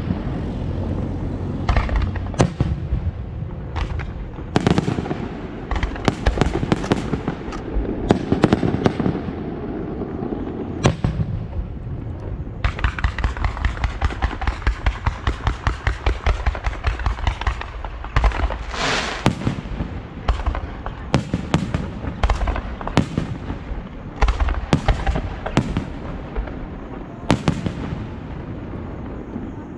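Fireworks show: repeated sharp bangs of bursting shells, with a run of rapid, evenly spaced pops in the middle and a brief hiss just after it.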